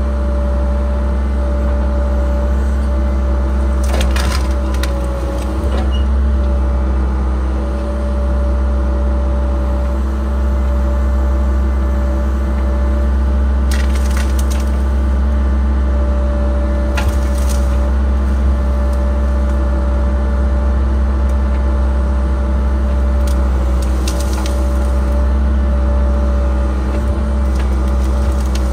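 Cat 306 mini excavator's diesel engine running steadily, heard from inside the cab, while wood and brush crack and splinter several times as the bucket works through them.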